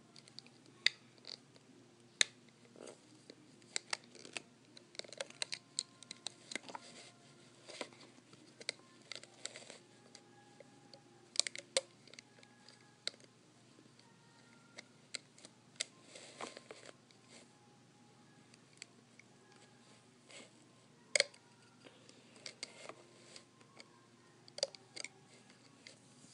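Scattered small clicks and taps, coming irregularly, as rubber bands are hooked off the plastic pegs of a Rainbow Loom.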